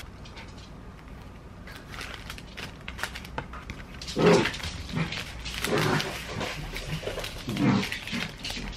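Two pet dogs playing, making short bursts of play noises from about four seconds in.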